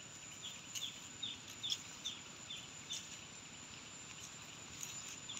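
A bird repeating a short falling chirp about twice a second over a steady high-pitched insect drone, with a few faint crackles of dry leaves.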